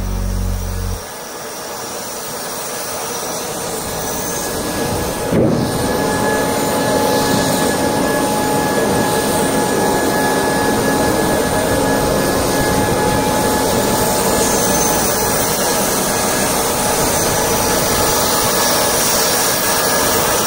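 Steady jet turbine noise from a large military cargo jet parked on the flight line, a loud rush with a high whine held on a steady pitch, while its rear cargo ramp is raised. A single sharp knock sounds about five seconds in.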